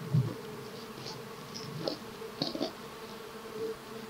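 Honeybees from an open hive buzzing in a steady hum, the hum of a calm colony. A few brief soft knocks and clicks come over it: one just after the start and a cluster about two and a half seconds in.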